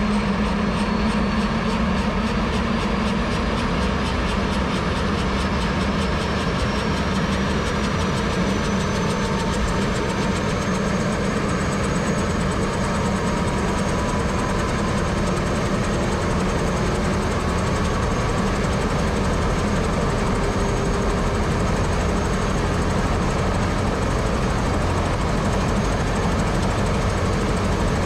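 Airbus H125 (AS350 B3e Esquilo) helicopter's Arriel 2D turboshaft engine and rotor running steadily, with a high turbine whine that climbs slowly in pitch over the first dozen seconds and then holds.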